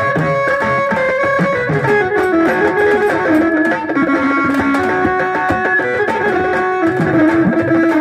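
Instrumental folk music: a plucked-sounding melody line of held notes over a steady rhythm of hand drum (dholki) and a steel drum beaten with sticks.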